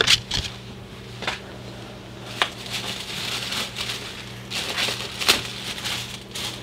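Tissue paper rustling and crinkling as it is handled and folded back, with a few sharper crackles along the way.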